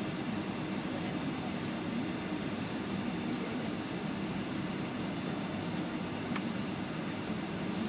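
Steady cabin noise of a Boeing 757 taxiing: the engines at low taxi power, the cabin air and the low rumble of the rolling airframe, heard from a seat over the wing.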